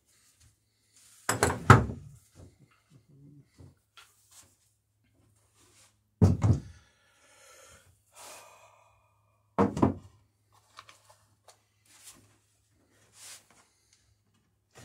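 Three heavy thunks a few seconds apart, each a quick cluster of knocks, from hands-on work fastening a plank on a wooden dory hull, with a few small clicks between and a faint steady low hum.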